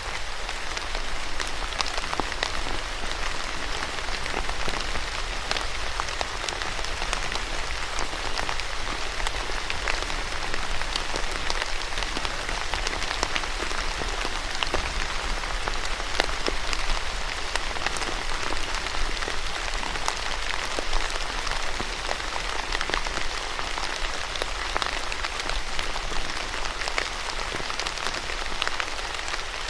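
Steady rain: a dense, even hiss of falling rain with many individual drops striking as sharp ticks, unchanging throughout.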